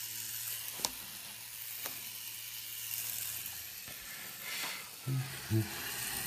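Tattoo machine running with a steady low hum under a hiss, with a couple of faint ticks. About four and a half seconds in, a short rubbing swish as the skin is wiped with a paper towel, followed by two brief low bumps.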